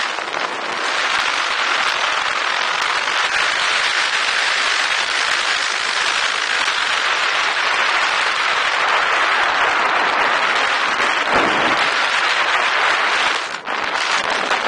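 Strong wind rushing over the camera microphone during a paramotor's 360° spiral descent: a loud, steady hiss that cuts off suddenly near the end.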